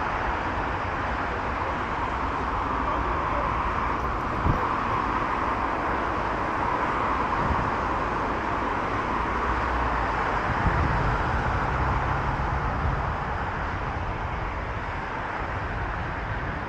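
Steady road traffic from a busy multi-lane road below: a continuous hiss of tyres and car engines. A lower hum joins in for a few seconds about ten seconds in.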